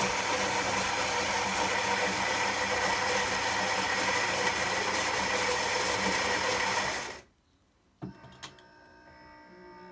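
Philips EP2220 fully automatic espresso machine's built-in ceramic burr grinder grinding fresh coffee beans for an espresso. It is a loud steady grind that cuts off suddenly about seven seconds in. A couple of clicks follow, then a faint steady hum as the machine moves on to brewing.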